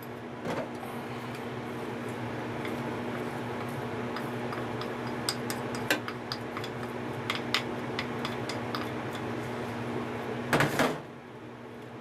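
Chopsticks clicking lightly against a ceramic bowl and an aluminium saucepan as herbs are scraped into the pot, a loose series of small taps over a steady hiss and hum. A louder clatter comes near the end, after which the hiss drops.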